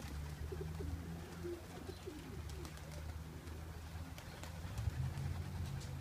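A flock of young racing pigeons cooing in a low, continuous murmur, with a few faint clicks.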